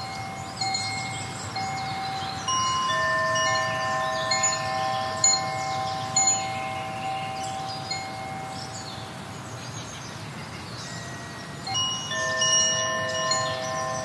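Wind chimes ringing: several clear notes held for seconds at a time and overlapping, with quick high tinkling above them and a new cluster of notes struck about two and a half seconds in and again near the end.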